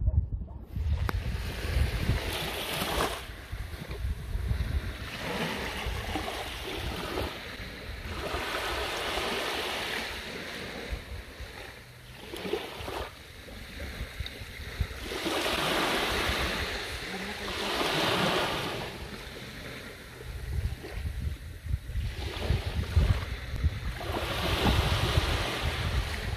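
Small sea waves breaking and washing up a sand beach, swelling and fading every few seconds, with wind rumbling on the microphone.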